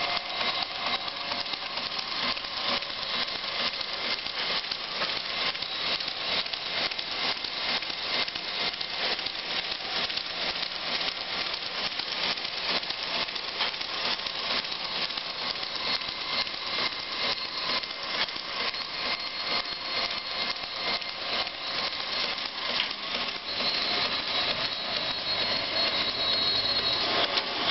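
1927 Brown & Sharpe No. 2 surface grinder running, a steady high whine over a fast, even rattle of ticks; the whine grows louder near the end.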